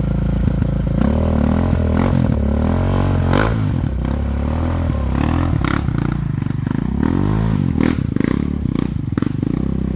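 ATV engine running and revving up and down under changing throttle, with scattered clatter and scraping.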